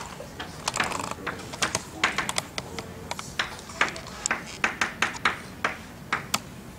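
Chalk on a blackboard: a quick, irregular run of sharp taps and short scrapes as an integral is written out.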